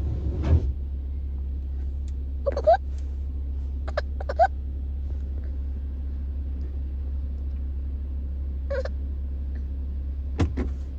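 Low, steady rumble of an idling car heard inside the cabin, with a baby giving a few short, rising whimpers spread through it.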